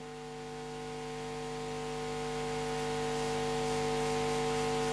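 Steady electrical mains hum with a hiss under it, growing slowly louder.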